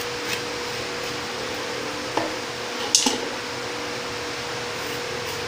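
Hands handling a split bitter gourd over a bowl of cut pieces: two short clicks about two and three seconds in, the second the louder, over a steady hum.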